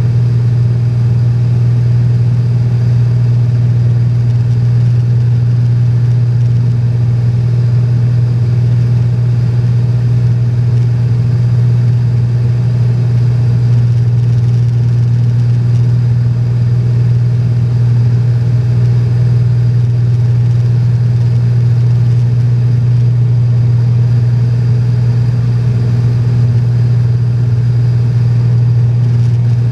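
Cessna 210's six-cylinder piston engine and propeller in flight, heard from inside the cabin as a loud, steady low drone that does not change.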